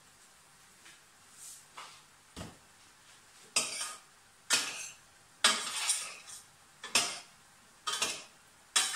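A metal spoon scraping and clinking against a saucepan as food is dished up. It is faint at first, then comes as loud strokes about once a second from about three and a half seconds in.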